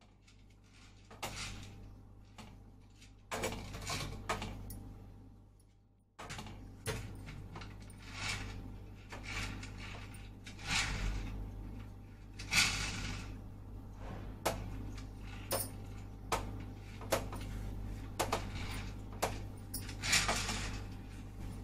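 Irregular knocks, clicks and short scraping or rustling sounds of household objects being handled and set down, over a steady low hum.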